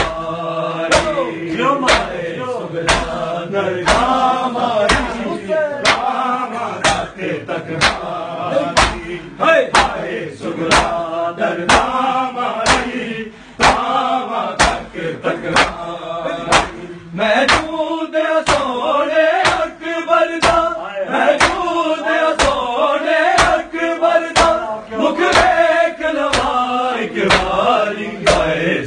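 A group of men chanting a noha in unison over rhythmic matam: open-handed chest beating, heard as sharp slaps a little under two a second, keeping time with the chant.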